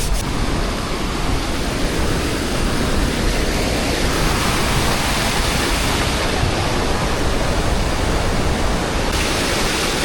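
Tegenungan waterfall's steady roar of falling water, heavy and even, partly masked by wind on the microphone.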